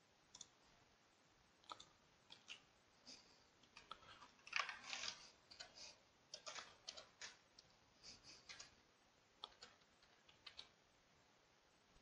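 Faint computer keyboard keystrokes and mouse clicks, coming in short scattered bursts with gaps between them.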